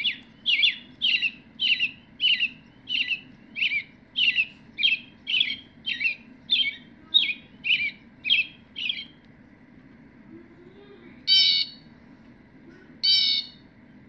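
Recorded killdeer call played through the small speaker of a bird-song sound book: a fast run of about seventeen short, shrill notes, roughly two a second, lasting about nine seconds. Then two harsher, raspier calls about two seconds apart near the end.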